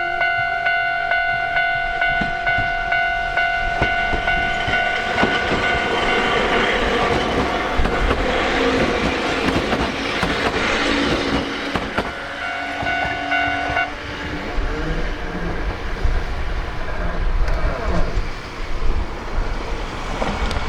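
Japanese level-crossing alarm sounding its repeating "kan-kan" bell as a Sangi Railway train rushes through the crossing with rail and wheel noise. The bell rings through the passing and stops about two-thirds of the way in, leaving a low rumble.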